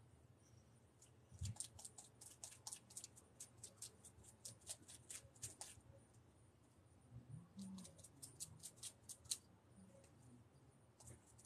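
Faint, quick, irregular crackling and scratching clicks from hands working at the surface of a spray-paint painting, coming in two spells.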